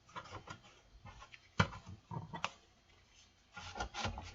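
Irregular rubbing and scuffing as the inside of a power amplifier is wiped and dusted with a damp alcohol towel, with two sharp clicks or taps in the middle, the first the loudest.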